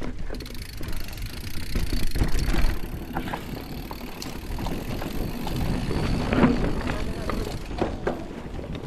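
Scott Ransom full-suspension mountain bike riding down a rough trail: tyres rolling over dirt and stones, with frequent short clicks and rattles from the bike. A steady low rumble of wind runs on the microphone.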